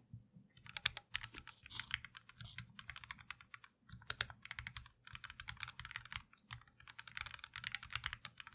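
Typing on a Keychron Q1 aluminium gasket-mount mechanical keyboard with lubed Gateron Phantom Red linear switches and PBT keycaps: rapid keystrokes in bursts with short pauses. The clacks are soft, with no echo or metallic ping, a sign of the dampening foam and lubed switches.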